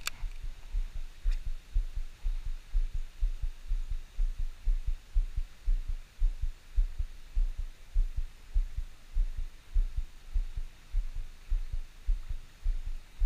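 Dull low thumps, several a second and uneven in strength, knocking on the camera's microphone, over a faint steady hiss.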